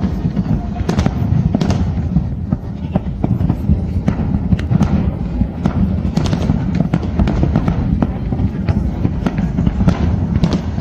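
Fireworks going off: many sharp bangs and cracks at irregular spacing, several a second, over a continuous low rumble.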